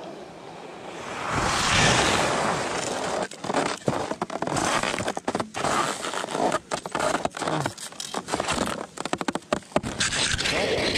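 Ski sliding and scraping over snow, heard through a camera mounted on the ski. It grows loud about a second in, then turns choppy and uneven with many brief gaps and knocks.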